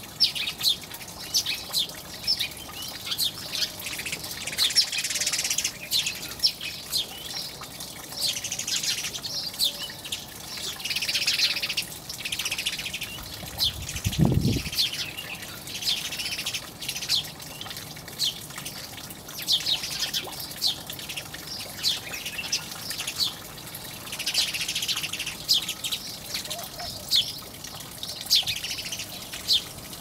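Flock of house sparrows chirping, many short high chirps coming in busy clusters. A brief low thud about halfway through.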